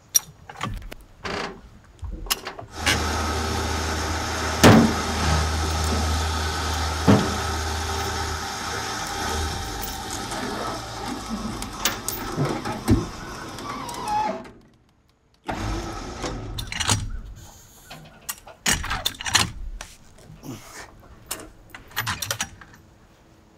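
Electric winch motor running steadily for about eleven seconds, with two sharp metal knocks partway through, while the trailer's log arch is folded down. After a short break come scattered clanks and knocks of chain and metal.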